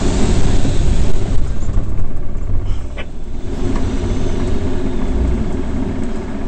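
Rushing airflow and wind rumble around the canopy of an unpowered SZD-59 Acro aerobatic glider in flight. It is loudest in the first two seconds, during the figure, then eases a little and holds steady as the glider levels out.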